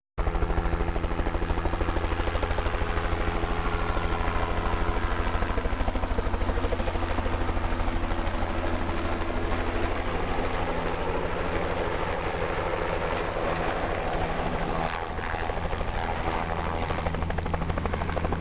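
Light turbine helicopter with a two-blade main rotor flying in low and hovering just above a grass field, its rotor beating in a rapid, steady chop.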